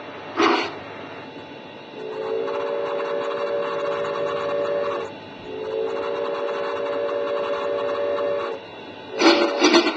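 Bachmann Shay model locomotive's sound system sounding a steam whistle: two long, steady blasts of about three seconds each, with a short gap between. Near the end a louder pulsing sound starts.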